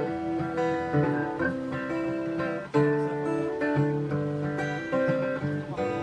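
Acoustic guitar playing an instrumental passage of strummed and picked chords, with a sharp fresh strum about three seconds in.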